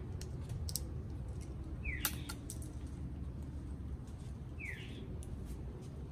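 A bird chirps briefly twice, a few seconds apart, over scattered sharp clicks and cracks from Amazon parrots cracking pistachio shells with their beaks, with a steady low rumble underneath.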